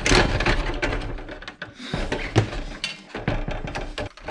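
Irregular knocks, clicks and rattles of plastic and metal receipt-printer parts and tools being handled during disassembly.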